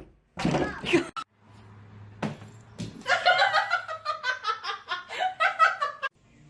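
A person laughing in a quick run of repeated bursts for about three seconds, which stops suddenly. It comes after a few short, loud sounds.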